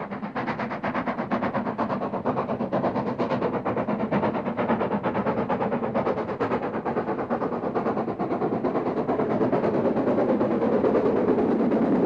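Steam exhaust beats of the Great Central 'Improved Director' 4-4-0 locomotive 62660 Butler Henderson as it works a train away from a station. The beats are rapid and even and grow louder as the engine draws nearer.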